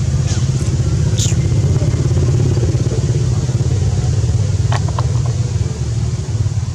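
Steady low motor rumble, with a few short high-pitched squeaks about a second in and again near five seconds.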